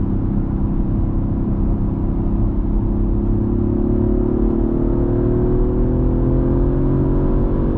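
Audi RS4 Avant engine pulling under load on a race track: steady at first, then rising slowly in pitch from about halfway through as the car accelerates out of a corner.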